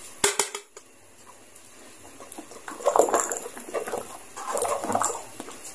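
A metal ladle clinks against a metal wok a few times just after the start, then the ladle is stirred through thick palabok gravy, scraping the pan and slopping the sauce in two rough spells about three and five seconds in.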